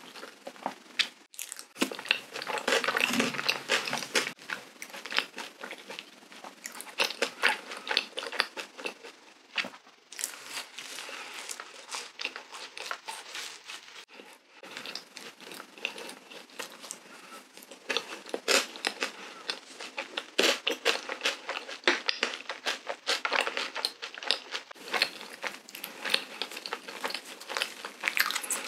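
Close-miked eating sounds of a large cream-filled doughnut dusted in sugar: bites into the soft bread and chewing, made up of many small irregular crackles and clicks, busiest about two to four seconds in.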